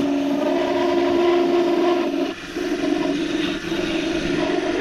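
A half-inch bowl gouge cutting a resin-and-grapevine bottle-stopper blank spinning on a wood lathe, giving a steady pitched hum over a hiss of shavings. The hum dips briefly a little past two seconds in, then resumes.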